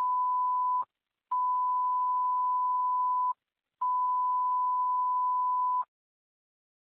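Dispatch alert tone on a fire radio channel, received through a pager: a steady mid-pitched beep broken into three long blasts with short gaps, the last two about two seconds each, signalling a coming fire dispatch.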